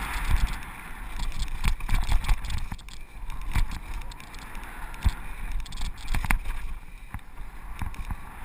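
Mountain bike descending a dirt and gravel downhill trail at speed: a steady rush of tyre and wind noise, with frequent sharp knocks and rattles as the bike hits bumps.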